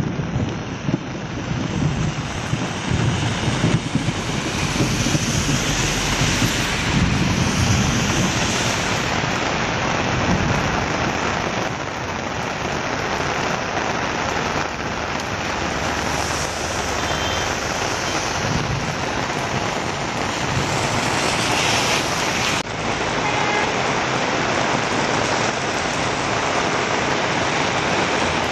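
Heavy rain pouring steadily, a dense even hiss, with the low rumble of vehicles driving along the wet road. About three-quarters of the way through the sound changes abruptly.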